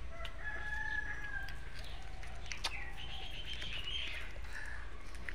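A rooster crowing once in the background, from about half a second to two seconds in. Higher bird calls follow around three to four seconds in.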